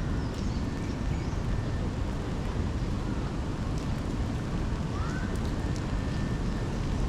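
Rainy city street ambience: a steady rumble of traffic under an even hiss of rain, with a short rising tone about five seconds in.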